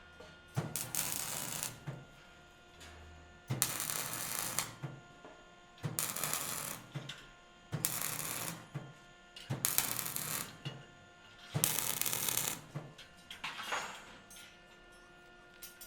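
A construction tool working in six rasping bursts, each about a second long, with short pauses of about a second between them.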